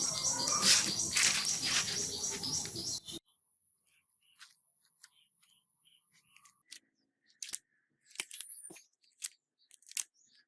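A dense, noisy sound with a fast repeating high pattern that cuts off suddenly about three seconds in, followed by scattered light clicks and taps, typical of small phone parts and tools being handled during a screen repair.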